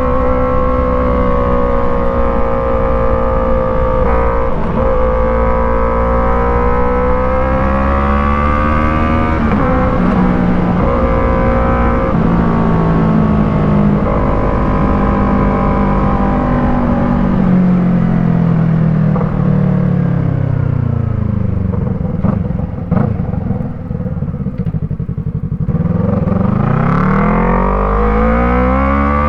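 Yamaha MT-03 parallel-twin engine through an aftermarket Arashi exhaust, ridden at steady high revs. The revs then fall away over several seconds and sit low with a few sharp clicks, and the engine revs up again near the end.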